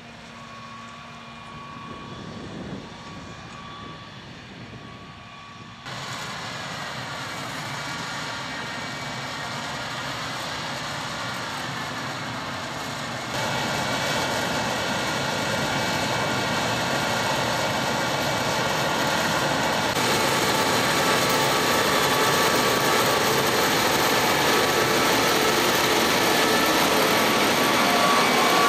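John Deere cotton picker running while harvesting: a steady engine and machinery drone with a faint whine. It gets louder in sudden steps about 6, 13 and 20 seconds in.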